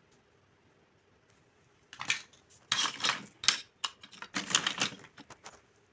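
Pieces of a kitchen set clattering and knocking together as they are handled: quiet at first, then about two seconds in a run of quick, sharp clicks and clacks in several clusters for about three and a half seconds.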